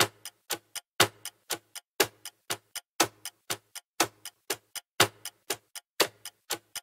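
Ticking-clock sound effect: sharp ticks about four a second, with a louder tick about once a second.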